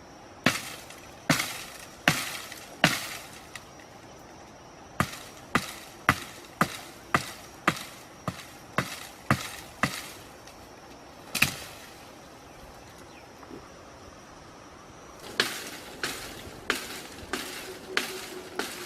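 Repeated sharp chopping strikes of a blade, about one every half to three-quarters of a second, coming in several runs with short pauses between. A faint steady high tone sits behind the first three-quarters and stops near the end.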